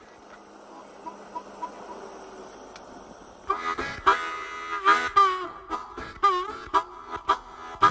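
Harmonica playing short notes with bends, starting about three and a half seconds in as the opening of a song, after a faint hiss.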